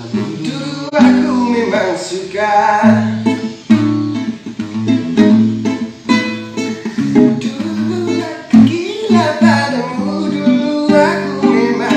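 Acoustic guitar strummed with a man singing along, a dangdut song played on the guitar alone.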